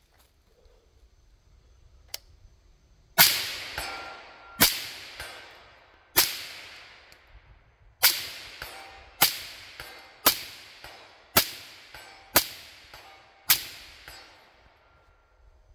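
Nine suppressed shots from a 16-inch .308 rifle fitted with a SilencerCo Omega 36M, starting about three seconds in. The shots come at roughly one a second, the last six evenly, and each trails off in a long echo.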